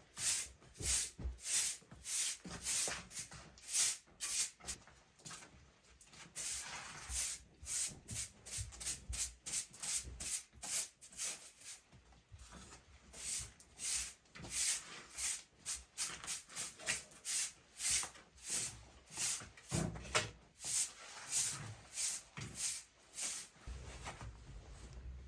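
Rapid repeated rubbing strokes, about two a second, broken by short pauses.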